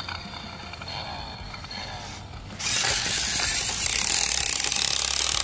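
Toy remote-control truck's electric motor and plastic gears running, a steady mechanical noise that starts suddenly about two and a half seconds in.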